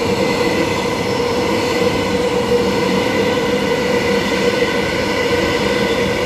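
Electric multiple-unit train passing through the platform at speed without stopping, an empty run to the depot. Steady rolling noise with a steady whine of several high tones.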